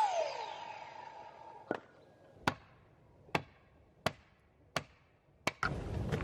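A falling swoosh that settles into a briefly ringing tone, then six sharp strikes evenly spaced about 0.7 s apart, each with a short ring.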